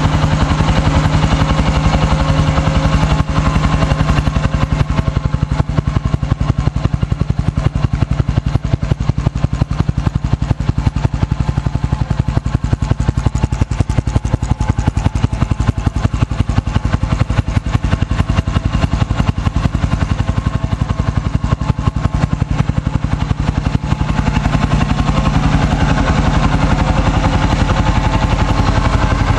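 2006 Husqvarna TE 610's single-cylinder four-stroke engine idling steadily through an aftermarket LeoVince exhaust, warming up, with an even run of firing pulses.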